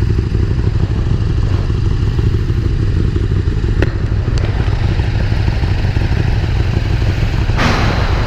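KTM 390 Duke's 373 cc single-cylinder engine idling steadily, with the other motorcycles in the group idling around it. A single sharp click comes a little under four seconds in, and a brief rush of hiss comes near the end.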